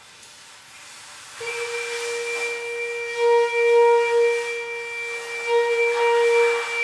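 Hechtyphon and microtone-duplex improvisation opening with one long steady note at a fixed pitch. The note enters about a second and a half in over a breathy hiss and swells louder a few times.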